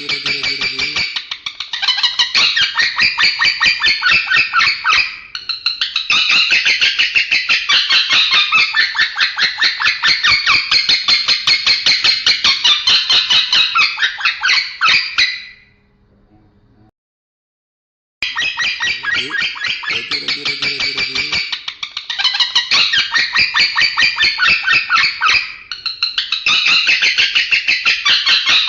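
Male lovebird chattering in long unbroken runs of rapid, high, scratchy chirps. The chatter breaks off for about two seconds of silence a little past the middle, then starts again.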